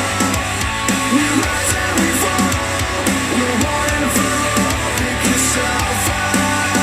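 Rock music with electric guitar and drums played back through a JBL Charge 4 Bluetooth speaker, with a steady bass line and regular cymbal hits.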